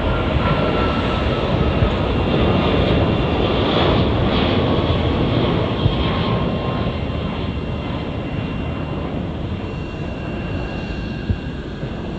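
A jet airliner's engines on departure: a loud, broad rushing rumble with a faint whine that slowly falls in pitch, the noise gradually fading over the last several seconds.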